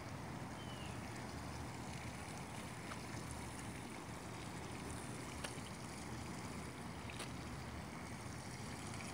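Steady low rumbling outdoor background noise with a few faint ticks, and no drone buzz or other clear tone.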